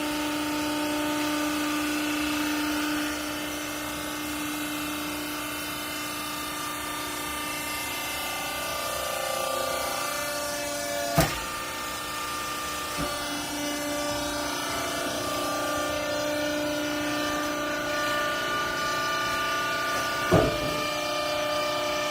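Hydraulic textile baler running: a steady machine whine of several held tones that shift in pitch partway through, with two sharp knocks, one about halfway and one near the end.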